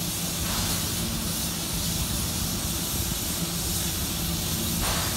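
C56 steam locomotive standing with steam hissing steadily, a constant high hiss over a steady low hum.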